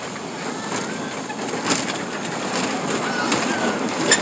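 A spinning amusement ride running with riders aboard: a steady rumble broken by a few sharp knocks, the loudest one near the end, and faint high squeaks.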